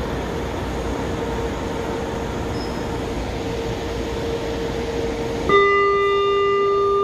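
São Paulo Metro train car running with a steady low rumble and a faint steady whine as it comes into the station. About five and a half seconds in, a loud, steady electronic warning tone starts and holds, the door signal sounding as the doors are about to open.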